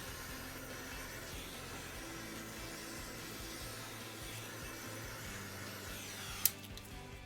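Handheld gas torch hissing steadily as its flame is passed over poured epoxy resin to drive out bubbles, shut off with a sharp click near the end.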